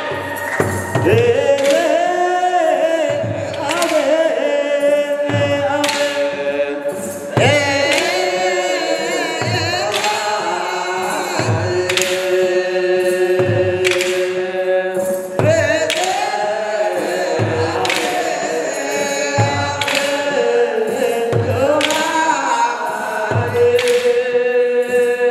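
Ethiopian Orthodox mahlet: a group of voices chanting together in long, gliding held notes, over hand clapping and a steady beat about once a second.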